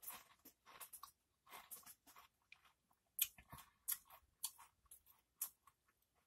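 Doritos tortilla chips with cheese dip being chewed: a run of quiet, irregular crisp crunches with short pauses between them.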